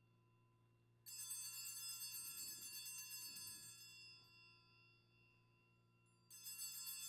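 Altar bells rung at the Benediction blessing with the monstrance: a bright, shimmering peal starts suddenly about a second in and fades over a few seconds, then is rung again near the end.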